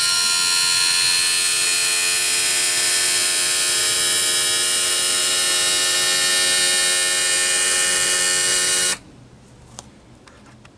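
Electric power trim and tilt motor of a 50 hp Mercury outboard running as it lowers the engine from tilted-up to vertical: a loud, steady whine that cuts off sharply about nine seconds in.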